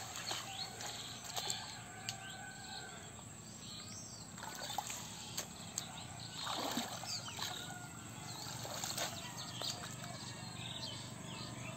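Birds chirping in the background, with scattered splashes and sloshing of shallow muddy water as hands pull weeds and mud out of it.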